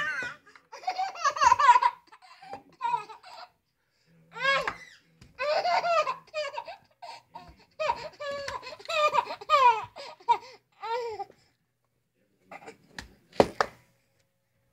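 High-pitched laughter in repeated bursts and peals, stopping about eleven seconds in, followed by a couple of sharp knocks near the end.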